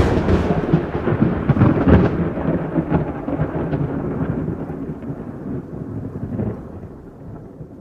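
A sharp thunderclap at the start, then a long rolling rumble that slowly dies away.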